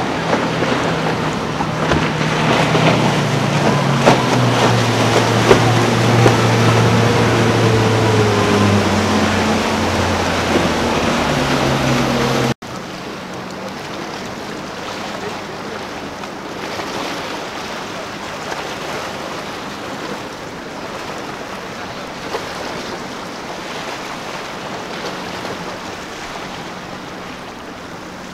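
Motorboat engines running at speed close by, a steady loud drone with water wash. About halfway through it cuts off abruptly to a quieter, more distant engine drone under wind and surf noise.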